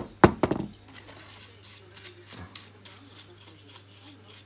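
A few sharp knocks at the start, then quick scratchy strokes of a bristle brush scrubbing a printed circuit board, cleaning off flux and cleaner residue around a freshly soldered joint.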